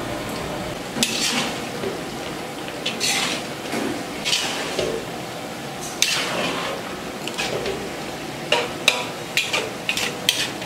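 A spatula scraping and knocking against a cooking pan as cabbage and fish heads are stirred: a few slow scraping strokes, then quicker sharp clinks near the end.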